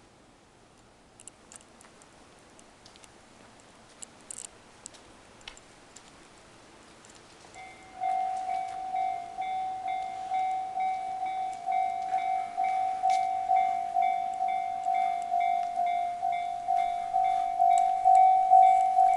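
Japanese railway level crossing's electronic warning bell starting about eight seconds in and ringing about twice a second, a little louder toward the end: the crossing is warning of an approaching train. Before it starts there are only a few faint ticks.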